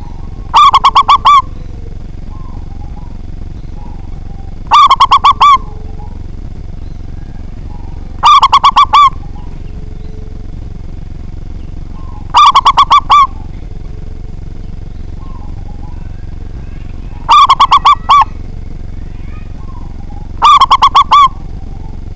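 Zebra dove (perkutut) singing its cooing song: six short phrases, each a quick run of four or five notes, repeated every few seconds. This is a local perkutut, kept for its big voice.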